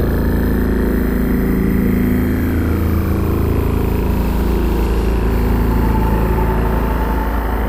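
Sci-fi cinematic ambience: a dense, steady low rumbling drone with thin tones slowly gliding over it, one sweeping down about two seconds in while another climbs gradually.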